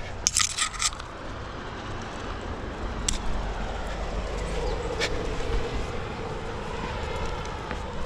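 Scraping and knocking of hands and shoes on tree bark during a free climb: a burst of scrapes just after the start, then single knocks about three and five seconds in, over a steady low rumble.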